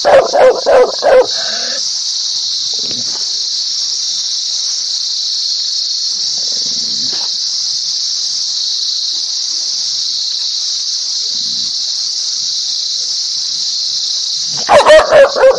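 A dog barks in a quick run of four at the start and four more near the end, with only a few faint sounds between, over a steady high hiss.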